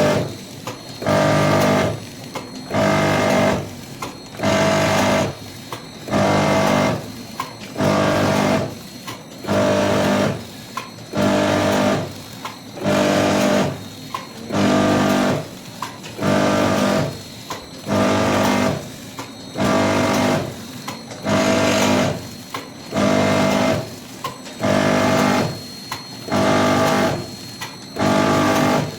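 Granulated palm sugar packaging machine running through its cycle: a pitched motor hum for about a second, then a short lull with small clicks, repeating about every two seconds.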